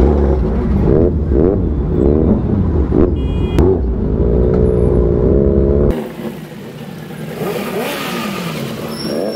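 Sport motorcycle engines revving in repeated quick blips, the pitch rising and falling, with wind rumbling on the microphone. About six seconds in the sound cuts abruptly to quieter revving from bikes close by.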